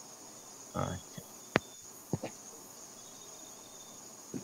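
A phone being handled and carried over a video call: a few soft knocks and clicks, the sharpest about a second and a half in. A steady, faint, high-pitched chirr runs underneath.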